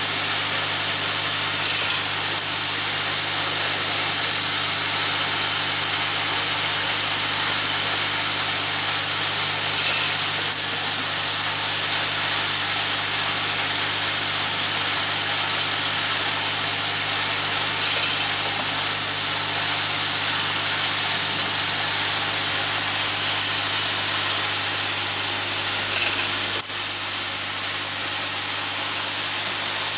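MK1040 centerless grinder running steadily: a constant grinding hiss over the low hum of its motors, with a faint short click about every eight seconds.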